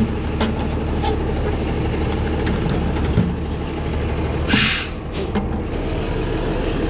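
A truck engine idling steadily, with a sharp hiss of air about four and a half seconds in and a shorter one just after it.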